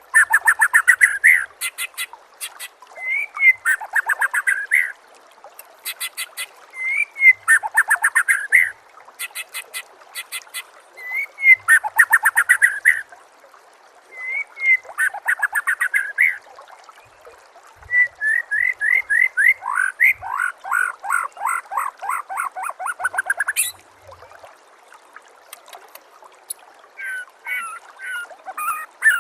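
Songbird singing the same phrase over and over, one roughly every four seconds. Each phrase is a short rising note, then a fast run of downslurred whistles, with rapid high-pitched ticking above. Near the end it breaks into shorter, scattered notes.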